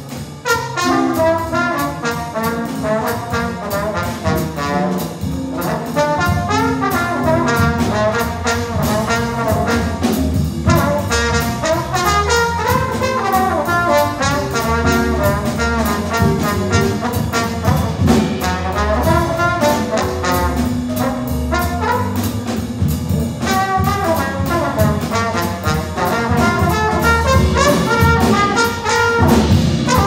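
Big band playing a jazz chart led by two featured trombones, over saxophones and brass and a rhythm section of drums, upright bass, guitar and piano.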